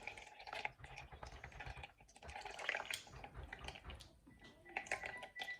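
Faint, scattered small clicks and soft knocks of kitchen utensils, with some dripping of liquid, while tamarind water is being worked.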